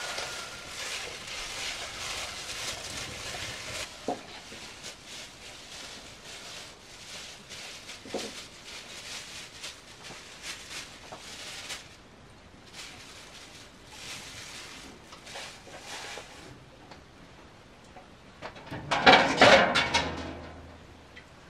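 Scattered light clicks and knocks of objects being handled, with a louder clatter lasting about a second and a half near the end.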